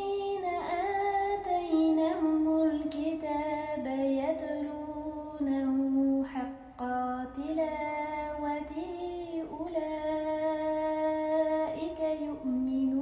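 A female voice chanting melodically in Arabic without accompaniment, with long held notes and ornamented turns in pitch, pausing briefly for breath twice.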